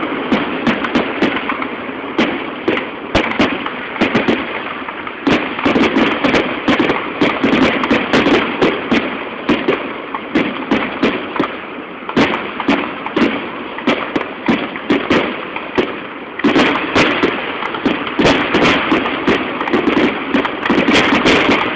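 Fireworks display in a rapid barrage: many sharp bangs and crackling reports in quick succession, over a continuous background din.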